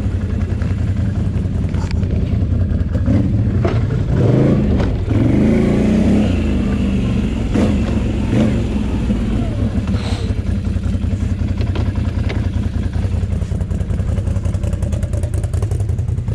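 Can-Am Renegade 800 ATV's V-twin engine running at low speed over rough ground, the revs rising and falling in a louder stretch about a third of the way in. Scattered knocks and rattles from the machine jolting over the track.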